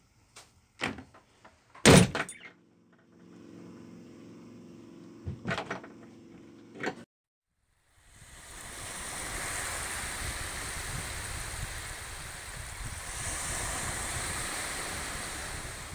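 A boat's cabin door slams shut once, loudly, about two seconds in, over a low steady hum with a few lighter knocks. After a brief silence, a steady rushing noise takes over from about eight seconds in.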